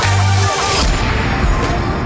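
Electronic background music with a deep bass line and drum hits.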